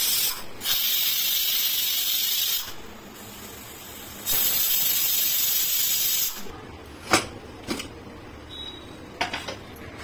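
India Gold pressure cooker venting steam from its weight valve on the gas stove, a loud steady hiss in two bursts of about two seconds each. The hiss stops about six seconds in, followed by a few sharp clicks.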